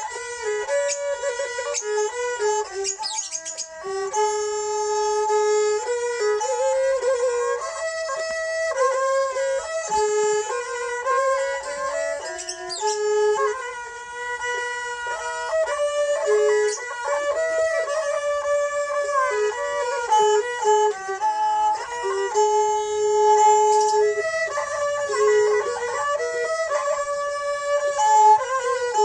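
Thai so fiddles bowed together in harmony, playing a flowing traditional mahori melody in kantrum style.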